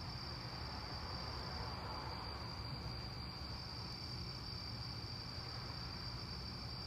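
Crickets chirping in a steady, continuous high trill, over a low background rumble.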